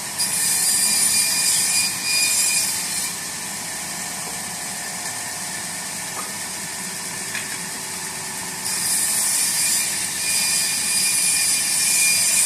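Sawmill running steadily, with two louder spells of a high hissing whine as the blade cuts through wood: one in the first three seconds, the other from about nine seconds in.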